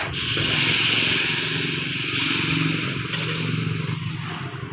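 Escabeche sauce of vinegar and seasonings poured into a hot wok of sautéed onions, sizzling loudly as it hits the oil. The sizzle starts suddenly and slowly dies down as the liquid comes to a bubble.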